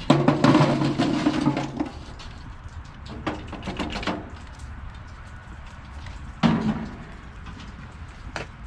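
Lit charcoal being dumped from a chimney starter into an offset smoker's firebox: a metallic scrape and rattle for about two seconds, then a couple of sharp clanks of metal, and another short scrape near the end.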